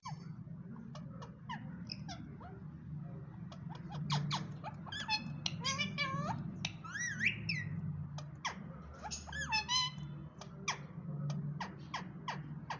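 Pet parrot chattering: a rapid run of short clicks and chirps, with a few longer calls that bend up and down in pitch in the middle, over a steady low hum.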